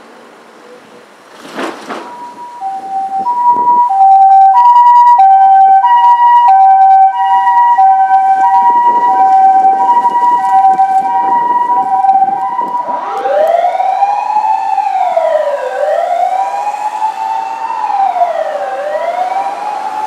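Japanese ambulance siren playing its two-tone hi-lo 'pee-poh' pattern, starting a few seconds in as the ambulance pulls out. About two-thirds of the way through, a rising and falling wail joins it, sweeping up and down every few seconds: the ambulance's remote siren sounded for an intersection.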